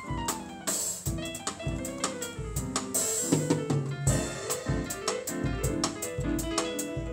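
Electronic keyboard playing chords and melody over a steady drum-kit beat, with a falling run of notes at the start and a cymbal crash about three seconds in.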